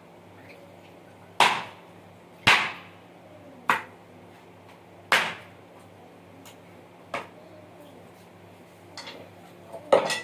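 About six sharp, hard knocks at uneven intervals, each with a short ringing tail: something being struck down hard against a concrete floor.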